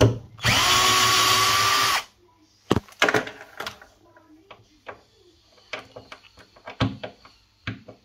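Cordless drill-driver runs steadily at one speed for about a second and a half, backing a screw out of the fridge's metal fixing bracket. A few sharp clicks follow.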